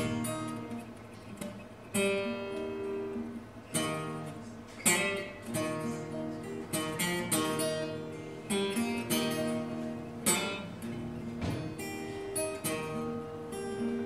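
Solo acoustic guitar playing the instrumental introduction to a traditional folk song: plucked chords and single notes, each struck sharply and left to ring.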